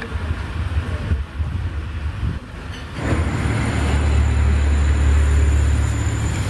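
A low engine rumble, as of a nearby vehicle, that grows louder about three seconds in, with a faint steady high whine above it.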